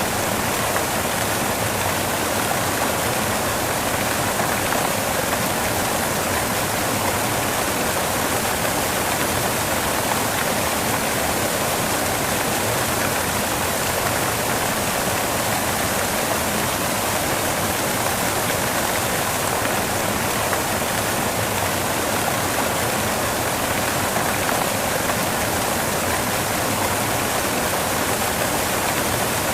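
Steady white noise: an even hiss that does not change.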